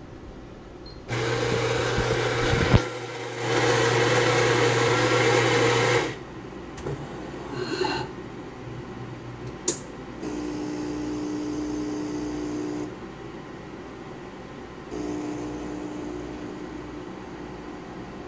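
Dr.coffee F11 bean-to-cup espresso machine brewing an espresso. Its grinder runs loudly for about five seconds, with a brief dip partway. A few clunks and a sharp click follow as the brew unit moves. Then the water pump hums steadily twice, for a couple of seconds each time.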